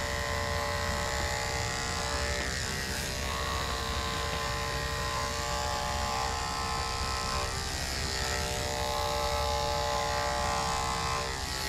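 Andis AGC 2-speed electric dog clipper with a ceramic #10 blade running steadily, shaving through a thick, coarse coat in downward passes. Its hum wavers slightly now and then as the blade moves through the hair.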